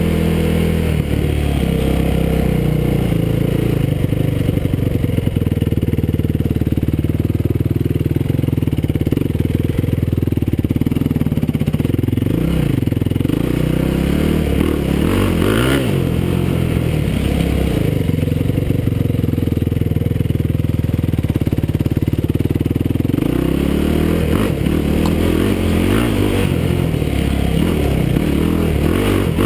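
Yamaha YFZ450 quad's single-cylinder four-stroke engine running while riding a trail, its pitch dipping and climbing again with the throttle several times past the middle and again near the end.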